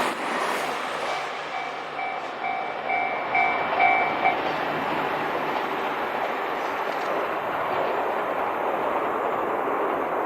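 Level-crossing warning bell ringing at about two strokes a second over the fading noise of a passing train, the bell stopping about four seconds in; a steady rushing noise continues after it.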